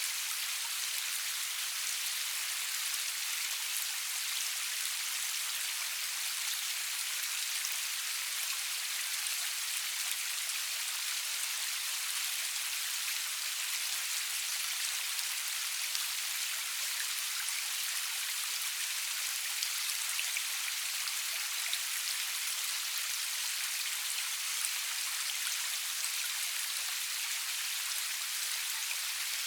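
Steady rain falling, an even high hiss of many drops with faint scattered patters and no thunder.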